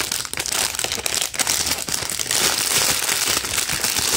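Clear plastic bag crinkling steadily as hands work a squishy toy out of its wrapping.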